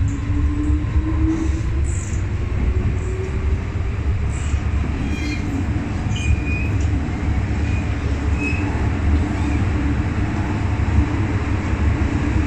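MTR M-Train electric multiple unit running on the line, with a steady heavy rumble. The motor whine rises in pitch over the first few seconds and then holds steady, and the wheels give a few brief high squeals around the middle.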